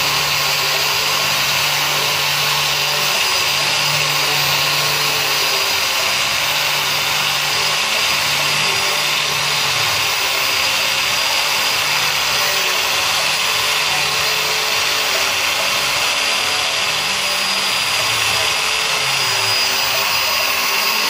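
Beveltools Bevel Mate EBA-12 electric bevelling machine running steadily under load, cutting a 30-degree bevel into the edge of ST355 steel plate.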